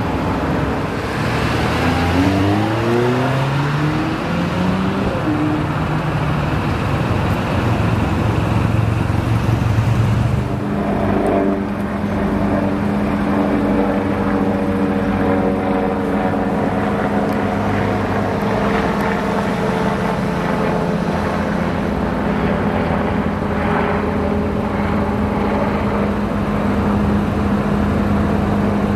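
Lamborghini Countach V12 accelerating hard, its pitch climbing through several quick upshifts before settling to a steady drone. About ten seconds in, a Porsche 911 GT2 RS twin-turbo flat-six takes over, running at a steady, even engine note as it drives off.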